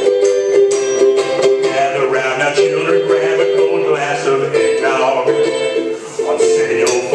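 Ukulele strummed in a song played live, over a steady held note, with a voice singing over it from about two seconds in.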